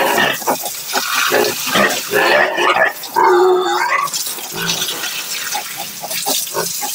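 Piglets squealing over the steady hiss of a hose spraying water onto a concrete pen floor, the loudest calls coming about two to four seconds in.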